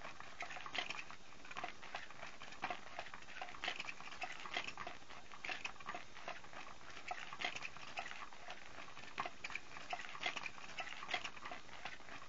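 Battery-powered Cat's Meow cat toy running: its motor drives a wand around under the nylon cover, giving an irregular clicking and rustling, a few ticks a second.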